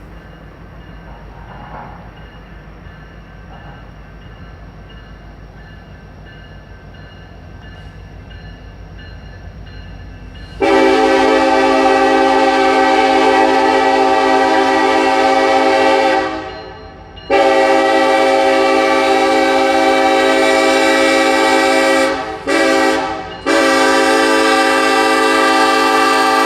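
Low rumble of two approaching CN diesel locomotives, then the lead unit's air horn sounds loudly as a chord of steady tones in the grade-crossing pattern: two long blasts, one short, then a final long blast still going at the end.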